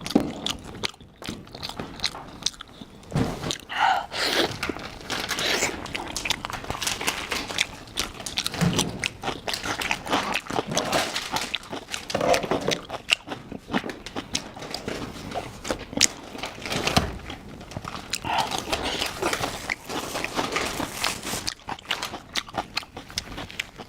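A person biting and chewing food close to the microphone, with many irregular crunching clicks.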